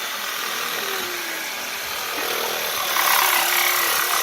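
Saw cutting through 2-inch schedule 40 PVC pipe: a steady cutting noise that gets louder about three seconds in.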